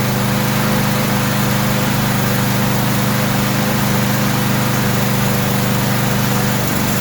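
Snapper lawn mower's small petrol engine running steadily after starting with no trouble.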